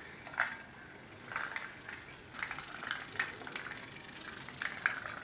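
Candle-powered put-put (pop-pop) toy boat's steam engine running, faint uneven popping at two or three pops a second as water in its boiler flashes to steam and pulses out of the exhaust tubes.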